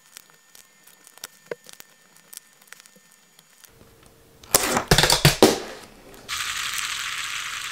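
Faint scattered ticks and clicks, then about a second of loud clattering and knocking from the camera being picked up and handled near the middle. A steady hiss follows.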